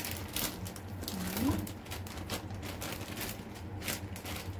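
Plastic bag crinkling and rustling in a quick run of crackles as ground fish paste is squeezed out of it into a stainless steel bowl.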